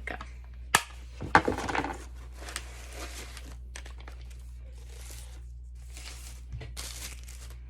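Plastic packaging crinkling and rustling as it is unwrapped, with a sharp click just under a second in and a louder knock about a second and a half in, then scattered bursts of rustling.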